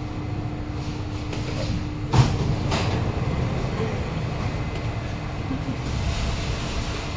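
Interior of a Kawasaki-CRRC Sifang CT251 metro car standing at a platform: steady low equipment hum, then a sharp thud about two seconds in as the doors open, with a lighter knock just after.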